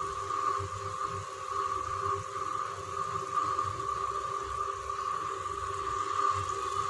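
Bassaru (vegetable sambar) at a rolling boil in an open aluminium pressure-cooker pot: a churning, bubbling rumble with a steady high tone over it.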